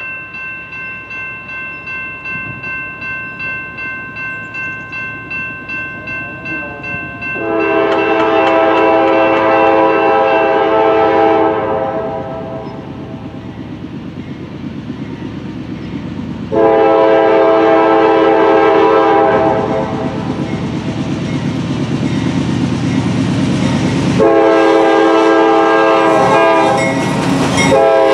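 Norfolk Southern diesel freight locomotives sounding their air horn in three long blasts as the train approaches. For the first few seconds a bell rings about twice a second. Between the blasts the engines' low rumble grows louder as the train nears.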